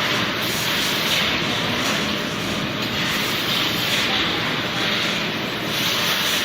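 Steady, even running noise of food-processing machinery, a continuous hiss with no distinct strokes or rhythm.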